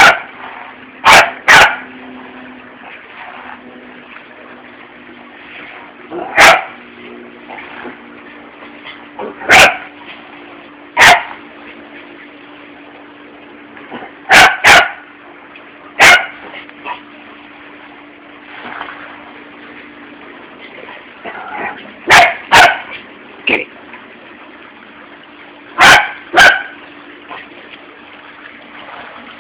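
Small shaggy dog barking at a hair clip on the floor: about fourteen short, sharp barks, often in quick pairs, spaced a few seconds apart.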